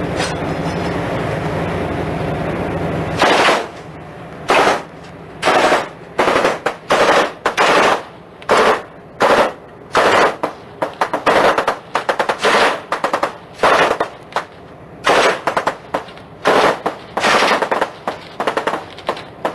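A steady rumble, then from about three seconds in, automatic gunfire in many short bursts in quick succession, heard from the deck of a patrol vessel under attack.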